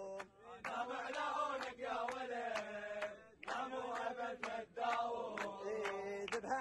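A group of men chanting together in long, held phrases, with hand claps on the beat.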